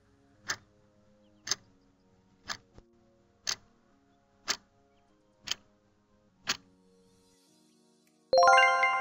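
Quiz countdown timer sound effect: a clock ticks once a second, seven times, over soft background music. About eight seconds in, a loud ringing chime sounds as the countdown reaches its end and slowly fades.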